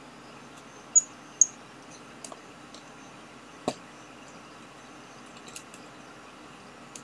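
Light clicks and taps of hands handling a small circuit board and its jumper wires: two short high-pitched ticks about a second in, a sharper knock near the middle and a few faint ticks later.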